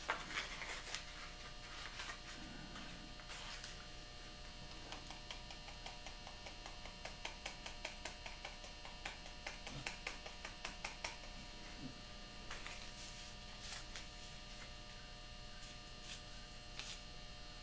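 Steady electrical hum, with faint scattered clicks and rustles of hands opening a small packet of filler powder and tipping it into a plastic tub.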